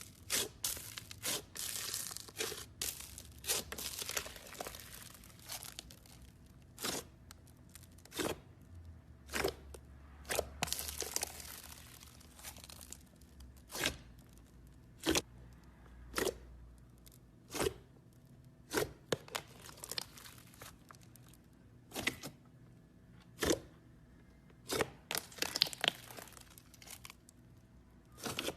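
Slime being handled and squeezed, giving sharp pops and clicks at irregular intervals, with a few stretches of crackling and tearing.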